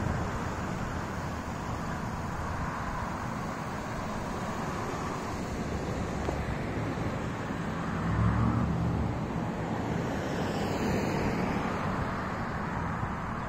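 Traffic on the street alongside, with a car passing near the end, and wind rumbling on the microphone.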